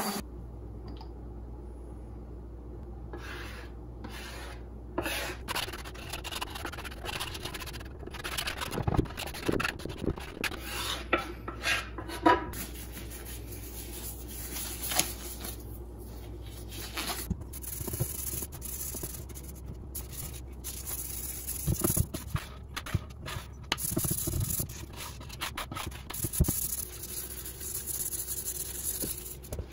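Hands in thin plastic gloves rubbing over an ash-and-walnut wooden board, oil being worked into the wood by hand, with crinkling of the plastic gloves. Irregular short scuffs and scrapes over a faint low steady hum.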